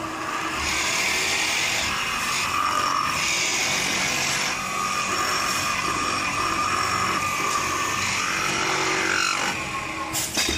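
Metal-spinning machine turning a steel tube while a forming roller presses its end into a narrower neck: a steady whirring and scraping of metal on metal with a high whine, whose pitch shifts briefly near the end.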